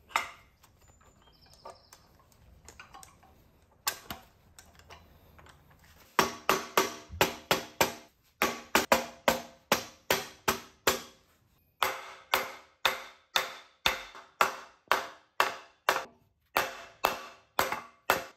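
Mallet blows, about two a second in runs with short pauses, pressing the oven-heated aluminium bearing housing of a Graziano L140 transmission down onto its shafts; each blow rings briefly. A single blow comes right at the start and another about four seconds in, the steady hammering begins about six seconds in, and by the end the blows land on a wooden block laid over the housing.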